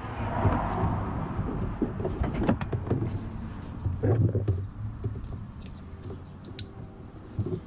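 Handling noise: scattered clicks, knocks and rustling as the controller box and its wiring are placed and moved about under the dash.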